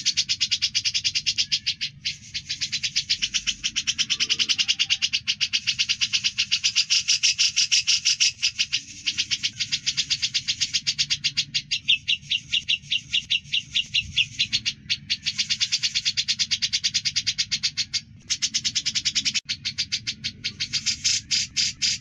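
Grey-cheeked bulbul (cucak jenggot) singing a rapid-fire rattling song (ngebren): long runs of fast, evenly repeated high notes, about ten a second, with a few brief pauses.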